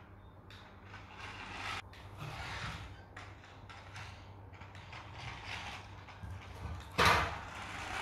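Toy remote-control car's small electric motor and gears whirring in short bursts as it drives across a tiled floor. A sudden loud clatter about seven seconds in.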